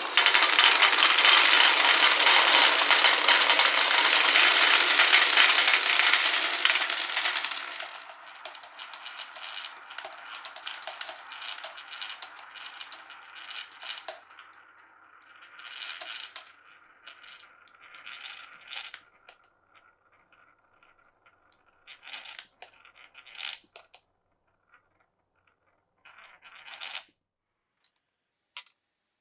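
Many marbles rolling and clattering down a wooden and plastic marble run: a loud, dense clatter for about the first seven seconds, then thinning to a few marbles rolling with scattered clicks, and only occasional clicks near the end.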